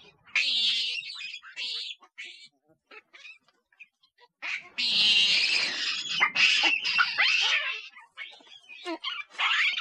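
Monkeys calling: short high-pitched squeals and chirps, then a long harsh screech of about three seconds starting about halfway through, followed by more squeals.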